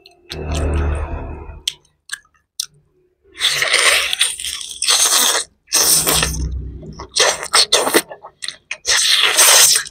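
Mouth sounds of a person biting, tearing and chewing boiled chicken on the bone, in loud bursts of one to two seconds with a short pause about two seconds in.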